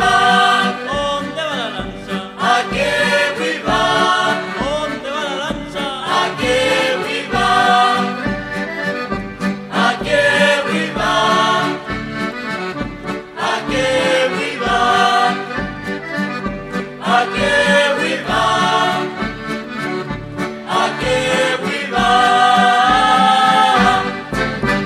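Accordion-led Chilote folk music playing over a steady low beat, the instrumental close of the song, ending on a long held chord.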